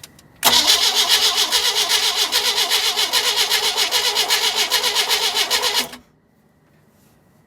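1988 Sea Ray's MerCruiser engine cranking on its starter for about five and a half seconds without catching, an even rapid beat that starts just after a click and cuts off suddenly. The engine won't start, which the owner suspects is from lost compression.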